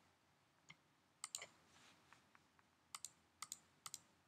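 Faint clicks of a computer mouse, several coming in quick pairs like double clicks, with three pairs close together in the second half.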